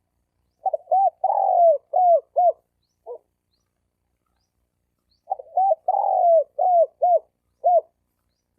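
Male spotted dove cooing, two song phrases. Each phrase is a few short hooting notes around one longer falling coo, and the second starts about two seconds after the first ends.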